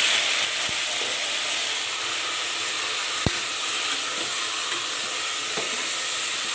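Raw chicken pieces sizzling in hot oil in an aluminium pressure cooker, a loud steady hiss, while a spoon stirs them. There is one sharp knock about three seconds in.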